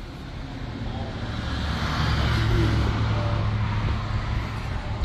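A road vehicle passing by, its low engine and tyre noise swelling to a peak in the middle and fading away again.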